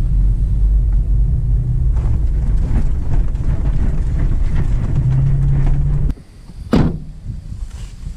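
Engine and tyre rumble inside an SUV's cabin while driving, steady until it cuts off about six seconds in. A quieter outdoor background follows, with one quick falling swoosh about a second later.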